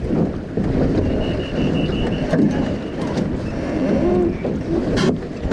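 Wind buffeting the microphone with water rushing along the hull of a sailing dinghy under way. One sharp knock near the end.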